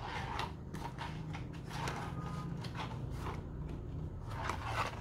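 Cardboard boxes being handled by gloved hands: a string of light scrapes, rustles and soft knocks as the boxes are lifted and slid across the table.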